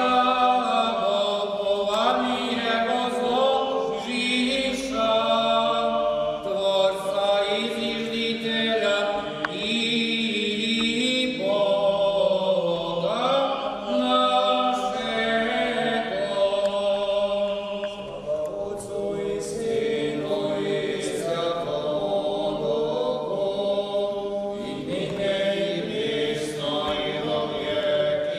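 Serbian Orthodox memorial-service (parastos) chant sung by several voices, a slow melody of long held notes.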